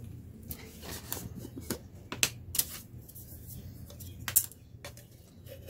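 Scattered sharp clicks and light scrapes from handling cans of silicone mold rubber and a wooden craft stick used to stir them, the loudest about two seconds in and again about four seconds in.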